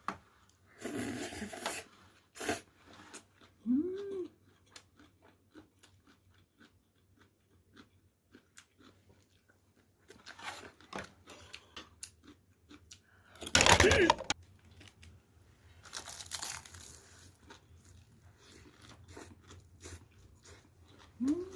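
Close-up eating sounds of bibimbap: chewing and crunching with many small clicks, like a spoon against a bowl. A few louder rustling bursts come through, the loudest about two-thirds of the way in. A short whine that rises and falls is heard about four seconds in and again at the end.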